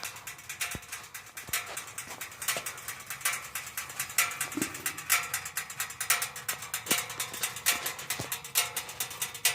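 Hot exhaust pipes of a 2007 Victory Hammer motorcycle ticking and pinging as they cool after a long ride: the metal contracting. The sharp clicks come irregularly, several a second.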